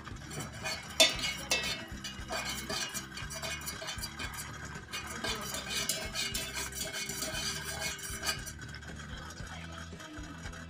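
A wooden stick stirring melted wax in a stainless steel pouring pitcher, tapping and scraping against the metal sides in quick irregular clinks. The sharpest tap comes about a second in, and the stirring stops a little after eight seconds.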